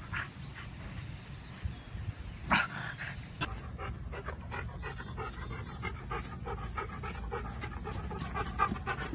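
A yellow Labrador retriever panting rapidly in an even rhythm as it trots, from about a third of the way in. Before that comes a short, loud scuff.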